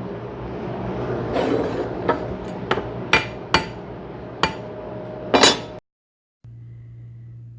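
A string of about eight sharp metallic knocks, unevenly spaced, some leaving a brief ring, like a hammer tapping on metal parts. Near the end the sound cuts off abruptly, and a low steady hum follows.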